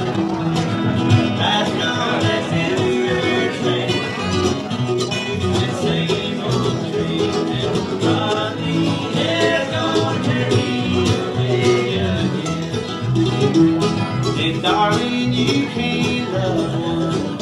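Live band playing an instrumental passage, led by two acoustic guitars picking and strumming together with another string instrument.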